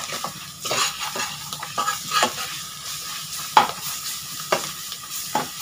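Spice masala with ginger-garlic paste frying in oil in a metal kadhai, sizzling steadily while a metal spoon stirs and scrapes against the pan in irregular strokes, with two sharper knocks about three and a half and five seconds in.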